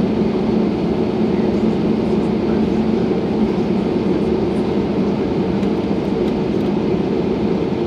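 Steady, even rumble of an airliner's engines and air rushing inside the passenger cabin.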